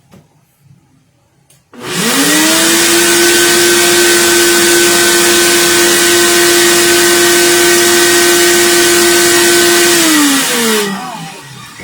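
Countertop blender blending a thick protein shake: about two seconds in the motor starts and its whine climbs to full speed, runs steady and loud for about eight seconds, then winds down near the end.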